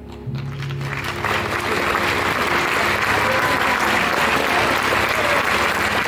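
Audience applause breaking out about a second in as the last orchestral notes die away, building quickly to steady, loud clapping.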